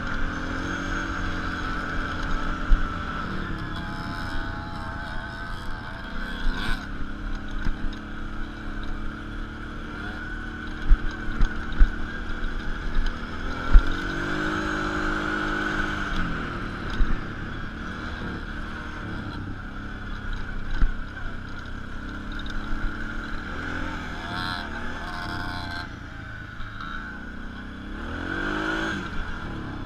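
Dirt bike engine heard on board while riding a sandy trail, its note climbing and dropping with the throttle a couple of times. A few sharp knocks come through in the middle.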